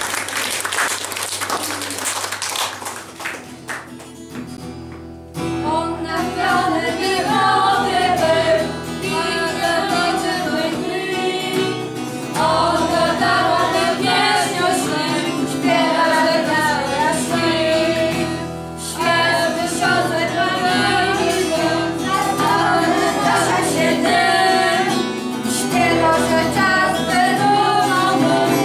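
Audience clapping for about the first three seconds. Then, from about five seconds in, a small group of adults sings a song to a strummed acoustic guitar.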